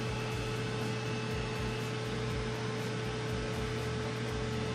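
Air fryer running, its fan making a steady, loud whir over a constant low hum and a faint steady higher tone.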